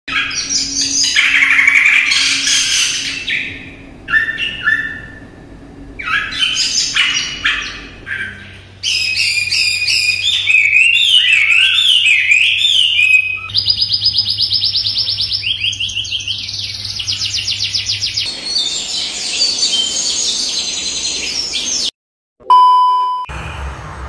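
Several caged songbirds singing one after another, the song changing abruptly every few seconds: bursts of chirping, a whistled phrase rising and falling, and long runs of fast repeated notes. Near the end the singing stops and a brief steady tone sounds.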